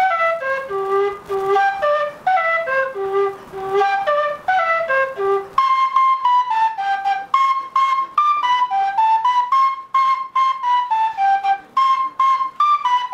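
Colombian end-blown flute made of a tube with a putty-capped mouthpiece, playing a lively melody of short, quick notes. About halfway through the tune moves up into a higher register.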